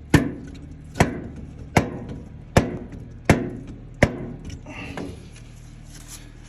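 Repeated hammer blows in a steady rhythm, about one every three-quarters of a second: seven sharp strikes, then a lighter one about five seconds in.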